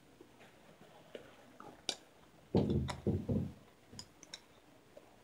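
Football shoulder pads being pulled on over the head and shoulders: scattered sharp plastic clicks and rustling, with a loud stretch of dull thumps and rustle about two and a half seconds in.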